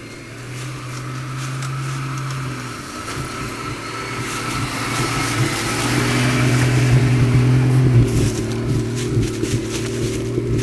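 Jeep Wrangler engine running at low speed as the Jeep crawls over a leaf-covered trail, growing louder as it comes closer. Its pitch shifts once about three seconds in, and short crackling clicks join it over the last few seconds.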